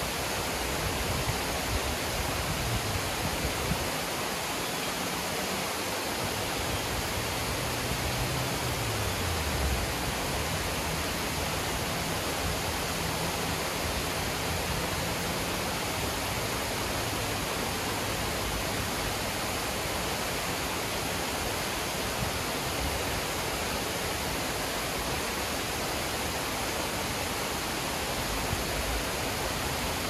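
Water pouring steadily over a low dam's spillway, a continuous rushing of falling water.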